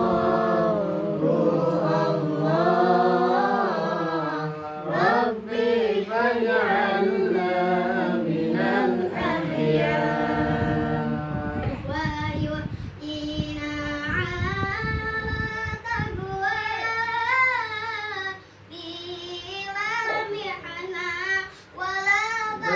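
Sholawat, an Islamic devotional song, sung with long, ornamented held notes that waver in pitch.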